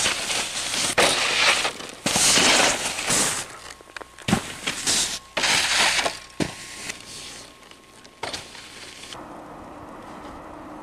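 Snowboards scraping and sliding over snow and a wooden picnic table, in a string of rough bursts with a few sharp impacts from the board striking. It gets quieter about nine seconds in.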